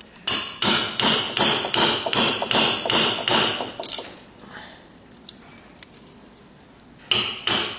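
Hammer striking a freshly forged chisel driven into wood: about ten quick, sharp blows, roughly three a second, then a pause of about three seconds, and the blows start again near the end.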